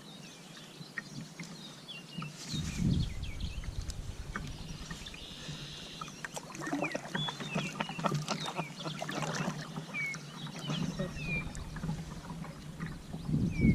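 Kayak on a river: water sloshing, with a cluster of small knocks and clicks against the boat. Short chirping calls sound through it.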